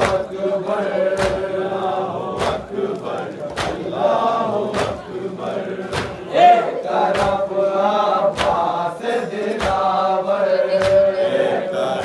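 Crowd of men chanting a Muharram mourning lament (nauha) together, with sharp chest-beating (matam) strokes landing in unison about once every 1.2 seconds.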